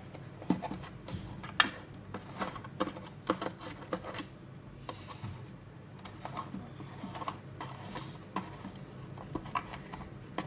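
Cardboard box and packaging being handled: irregular scraping and rubbing with scattered light knocks and clicks as a toy car is lifted out. The sharpest knock comes about a second and a half in.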